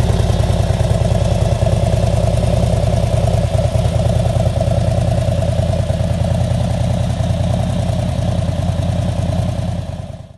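Harley-Davidson Dyna V-twin idling steadily through a BSL 2-into-1 Clubman Race exhaust, an even low loping beat that fades out near the end.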